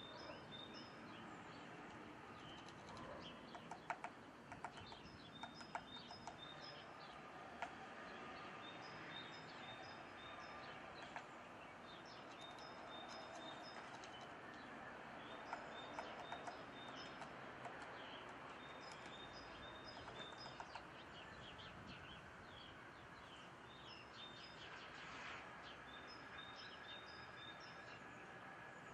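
Faint songbird song: short high notes at two pitches, repeated in series, with a few sharp ticks between about four and eight seconds in.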